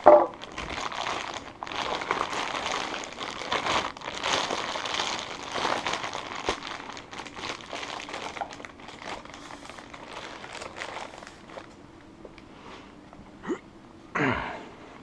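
Plastic wrapping crinkling and rustling as a limited-slip differential unit is turned over in its plastic bag, dense for the first ten seconds or so and then quieter.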